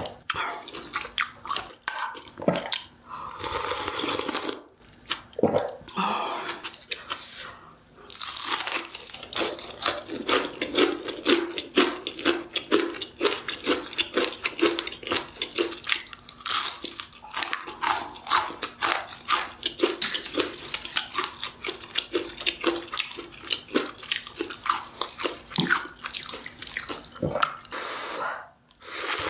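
Close-miked eating: a person biting and chewing food, with crunchy, wet clicking chews in a fairly steady rhythm through most of it and a few short pauses in the first several seconds.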